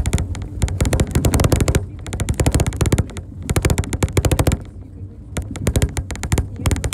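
Rapid rattling clatter in bursts over a steady low hum, from a vehicle travelling over a rough road. The clatter thins out about five seconds in and picks up again near the end.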